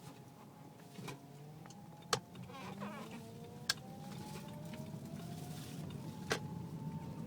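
Car power steering whining while the wheel is turned at low speed: several whine tones slowly slide up and down in pitch over the engine running. The owner suspects a worn power steering pump; a mechanic blamed the rack and pinion. Three short sharp clicks stand out.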